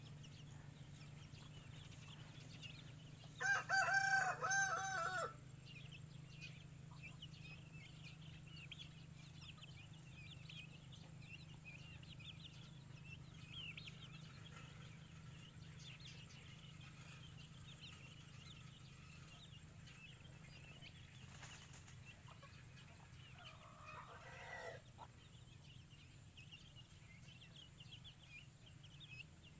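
A native chicken rooster crows once, about two seconds long, a few seconds in. Faint high chirping goes on throughout, with another short, weaker fowl call near the end.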